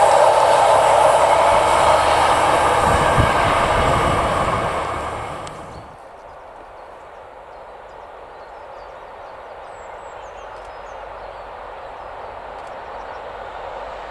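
Freight train of intermodal flat wagons rolling past on the rails, its wheel noise fading as the last wagons go by. About six seconds in it gives way to a much quieter rumble of a distant train approaching, slowly growing louder.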